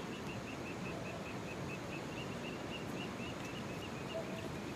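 Steady rush of a flowing river, with a bird calling a long run of short, high notes, about five a second.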